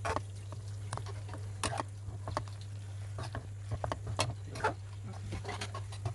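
Metal spatula stirring tofu in thick sambal paste in a kadai, with irregular scrapes and taps against the pan over a steady low hum.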